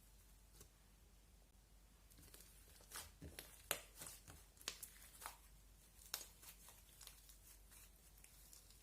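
Slime being handled, giving a faint run of sharp crackles and pops that are thickest from about three to six seconds in.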